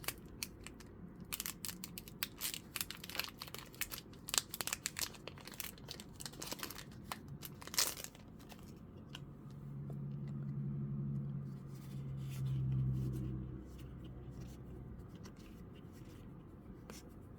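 Foil trading-card booster pack being torn open and crinkled, with quick crackling tears through the first half. About nine seconds in, a low steady hum takes over for about five seconds.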